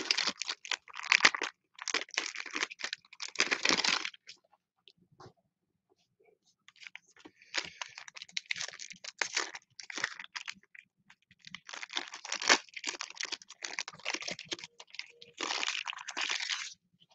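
Foil trading-card pack wrappers from 2021 Panini Mosaic retail packs crinkling and tearing open by hand as the cards are pulled out. The sound comes in bursts, with a quiet pause of a few seconds early on.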